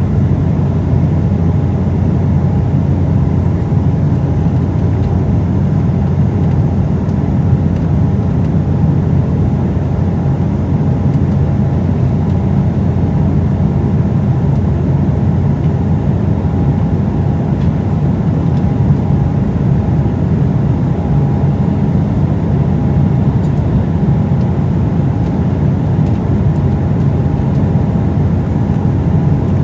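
Steady cabin noise inside an Embraer E190 in flight: the even rumble of its turbofan engines and the rush of airflow, with a faint steady hum running through it.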